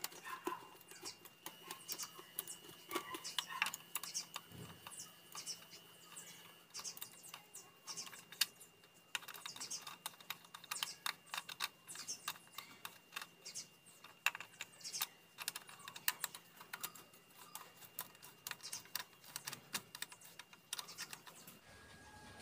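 Rapid, uneven light clicking from the valve cover of an E-TEC II engine, the tick of a noisy hydraulic lifter.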